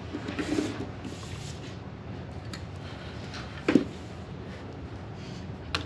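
Faint scratching strokes of a drawing tool on paper over a steady low hum, with a sharp tap a little past halfway and a lighter click near the end.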